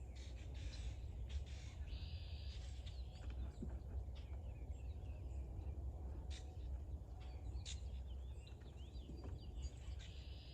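Birds chirping and calling repeatedly in quick short notes over a steady low rumble, with a few sharp clicks.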